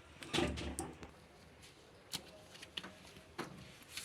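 Scattered knocks and clicks from hands working on a washing machine, with a short cluster of knocks about half a second in and a few single clicks later.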